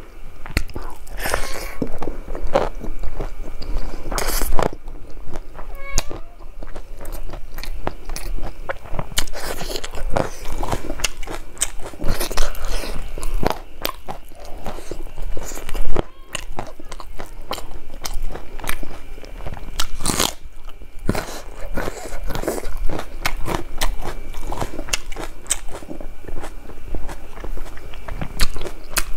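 A person chewing mouthfuls of rice eaten by hand: many small irregular clicks and mouth smacks, with a few louder ones.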